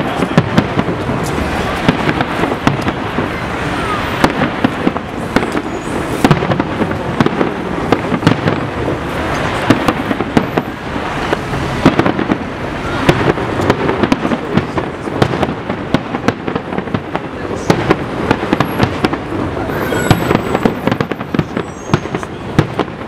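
Large fireworks display going off without pause: many overlapping bangs and crackling reports every second, in a dense, unbroken barrage.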